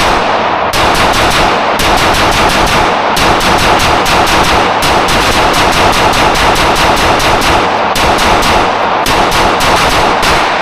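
Rapid, near-continuous gunfire from a forced-reset-trigger firearm being emptied in a magazine dump. The shots come in long fast strings broken by a few brief pauses.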